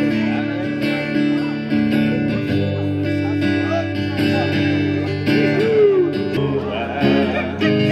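Acoustic guitar strummed in chords: an instrumental break between sung verses, with people's voices over it.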